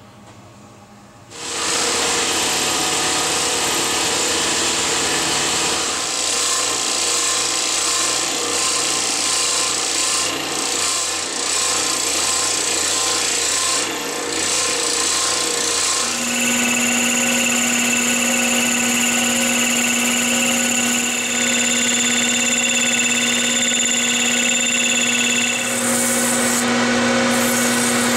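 Woodworking machines running and cutting black walnut, starting abruptly about a second in: a scroll saw blade sawing through a walnut board, then a lathe spinning with a steady motor hum while sandpaper rubs on the turning work.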